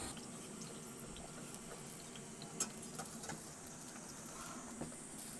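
Faint crackling of food frying in a pan, with a few light clicks scattered through it.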